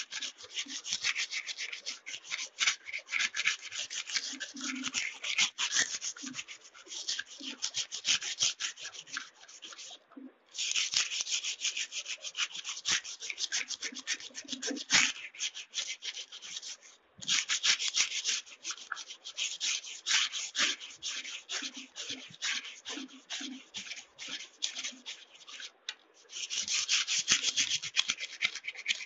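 Sandpaper rubbed quickly back and forth along a steel kitchen knife blade to sharpen it: a fast run of rasping strokes, broken by three short pauses.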